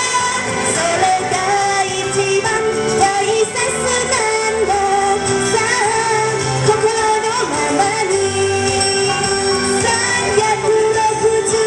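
A woman singing a Thai pop song into a handheld microphone over an amplified backing track.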